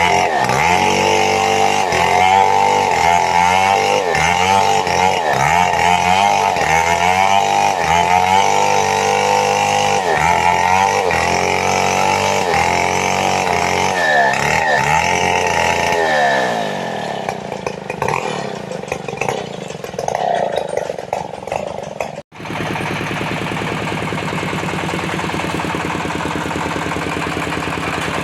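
Petrol chainsaw cutting sengon wood, its engine revving up and easing off again roughly once a second through repeated cuts. After about 16 s the revving stops and the saw runs rougher and lower, then, following a sudden break, it settles into a steady idle.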